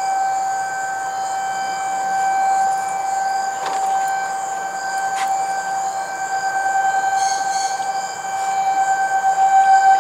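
Outdoor tornado warning siren sounding a steady single tone that swells and fades in loudness, growing louder near the end: the signal of a tornado warning in effect.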